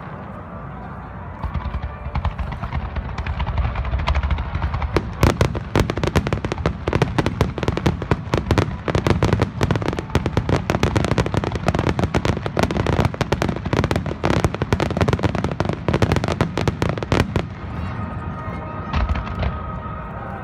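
Fireworks display: deep booms of shells bursting, then from about five seconds a dense barrage of rapid crackling bangs that thins out near the end.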